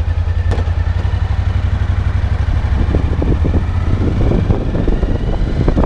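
Motorcycle engine running with an even low pulse, heard from the rider's seat. From about three seconds in the sound grows busier as the bike moves off from the stop. There is a single sharp click about half a second in.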